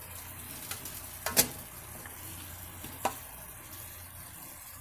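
Tomato and balsamic sauce sizzling in a skillet while a spoon scoops it, with two sharp clinks of the spoon against the pan, the louder one about a second and a half in.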